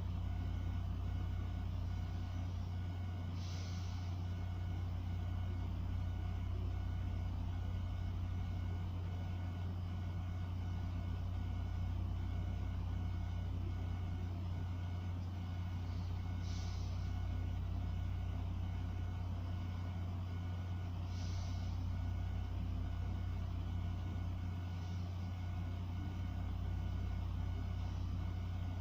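A steady low machine hum with a faint whine above it. A few brief soft hisses come about 4, 17 and 21 seconds in.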